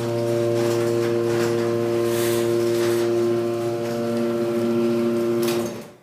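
Sears Craftsman 139.53415SR chain-drive garage door opener running the door down: a loud, steady motor hum with light clicks that cuts off suddenly near the end as the door closes. It echoes off the shed's bare stud walls.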